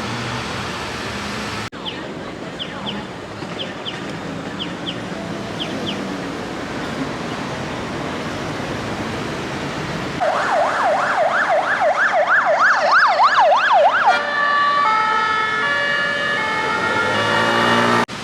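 Emergency vehicle siren in city traffic. It starts about ten seconds in with a fast yelp wailing up and down several times a second, then switches to a pattern of stepped held tones about four seconds later. Before that there is steady street and traffic noise.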